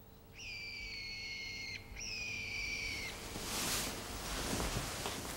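A bird gives two long, clear whistled calls, one after the other, each holding a steady high pitch that sags slightly toward its end.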